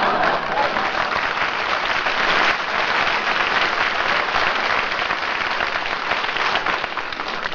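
Live studio audience applauding steadily for several seconds after a punchline, on a 1950 radio broadcast recording with its dull, narrow sound.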